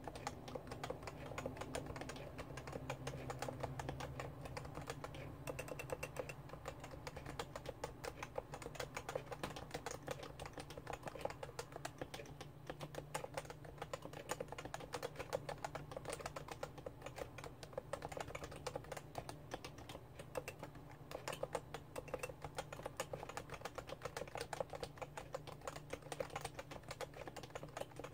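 Continuous fast typing on a Realforce R2 keyboard with Topre electro-capacitive switches: a dense, steady stream of keystrokes.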